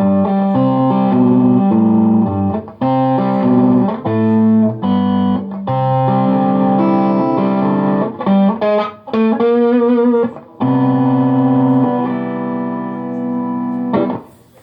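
Chibson SG electric guitar playing a ragtime piece, picked chords over an alternating bass line. About ten seconds in there is a short passage with wavering vibrato, and it closes on a held chord that dies away near the end.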